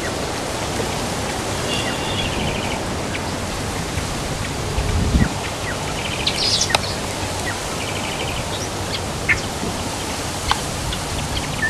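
Outdoor ambience of steady wind noise with birds calling: three short bursts of rapid chattering notes and scattered single chirps, and one low thump about five seconds in.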